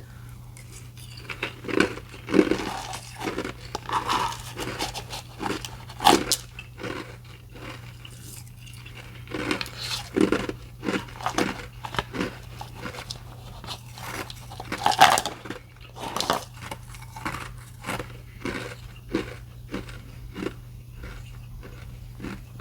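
Close-miked chewing of ice cubes: irregular sharp crunches, loudest about 2, 6 and 15 seconds in, with a steady low hum underneath.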